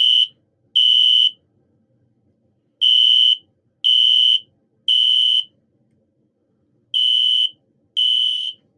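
System Sensor SpectrAlert Classic PC2475W ceiling-mount horn strobe sounding in the temporal-3 evacuation pattern. The high-pitched horn gives half-second blasts one second apart in groups of three, with a longer pause between groups.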